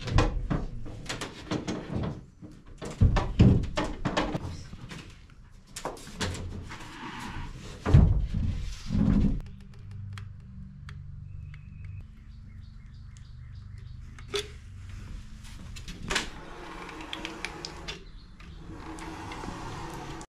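Hollow thuds and knocks of plywood sheets and foam board being handled and set down on a school bus floor. After about nine seconds this gives way to a steady low hum with a few sharp clicks, from a caulking gun laying a bead of adhesive on foam board.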